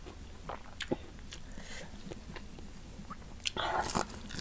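Close-miked mouth sounds of eating crispy fried chicken with rice and sambal: scattered small clicks and smacks of chewing, then a louder noisy burst of eating sounds about three and a half seconds in, as a handful of food is pushed into the mouth with the fingers.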